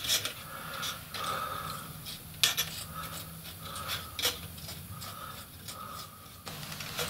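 A small paintbrush scratching and rubbing as it works acrylic paint onto a model pit head gear, with a few light clicks of the brush against the model.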